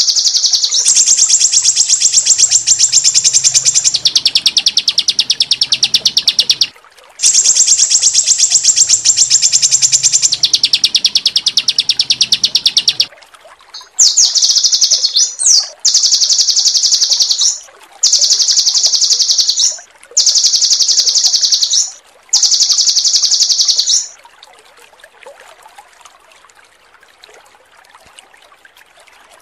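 A songbird's rapid, high-pitched rattling trill, the harsh 'roll tembak' shots used as masteran song for training cage birds. It comes in two long rolls of about six seconds each, then four shorter bursts of about two seconds with brief pauses between, and stops about 24 seconds in.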